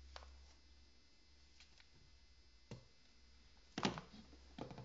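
Faint handling sounds of a duct-taped Glock 17 pistol turned over in the hands: a few light knocks and rubs, the loudest a little under four seconds in.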